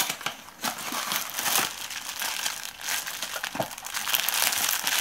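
Clear plastic bag around a toy figure crinkling and rustling as it is handled, a dense run of sharp crackles that grows louder and busier about a second in.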